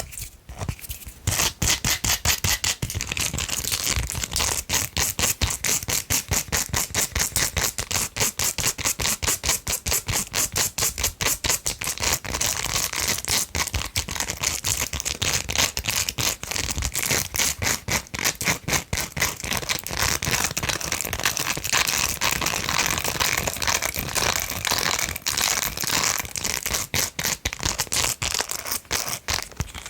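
Long fingernails scratching and rubbing a silicone brush in fast, even strokes, about five a second, with a brief pause just after the start.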